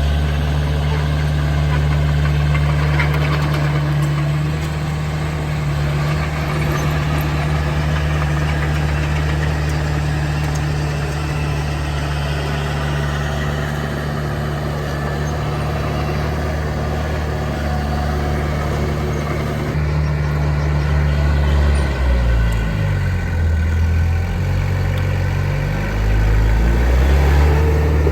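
Heavy diesel engine of an earthmoving machine running steadily at a constant speed. Near the end its engine speed dips and rises several times.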